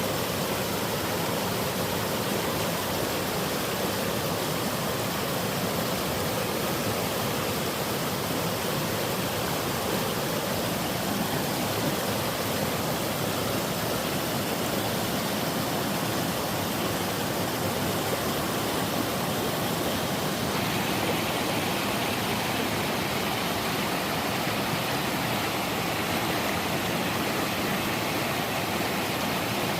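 Waterfall on a mountain stream, water rushing and splashing in a steady full roar. About two-thirds of the way through, the sound turns a little brighter and hissier.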